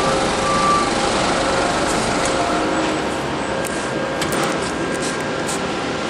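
Toyota forklift running and moving, a steady engine and drive noise, with a few faint clicks in the second half.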